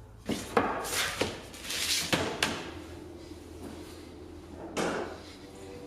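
A series of knocks and clunks as hard objects are handled and set down on a workbench: several in the first two and a half seconds and one more near the end, over a low steady hum.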